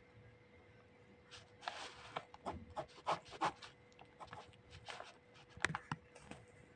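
Grey Persian cat mouthing and rubbing its face against a pen held close to the microphone: irregular clicks and short rasping scrapes starting about a second in and going on until near the end.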